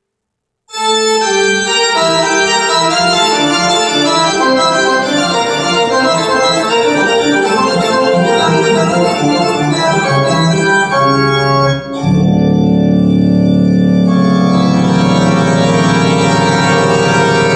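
Organ music played back through Technics SB-6000A loudspeakers. It starts after a brief silence with busy, many-noted playing, and about twelve seconds in it turns to long held chords over a deep bass.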